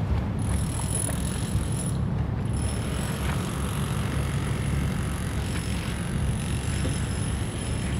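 Steady low engine rumble of a boat, mixed with wind on the microphone, and a faint high whine.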